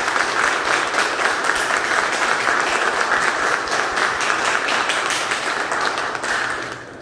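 Audience applauding, a steady patter of clapping that dies away near the end.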